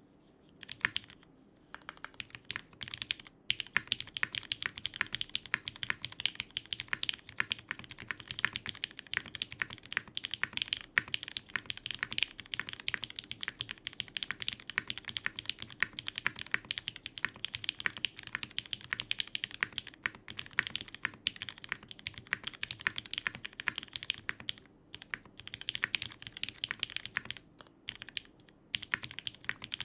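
Typing on a Geonworks F2-84 mechanical keyboard with lubed and filmed Cherry MX Hyperglide Black linear switches, an aluminium plate and GMK keycaps: a fast, steady stream of keystroke clacks. It starts about a second in and pauses briefly a few times, twice near the end.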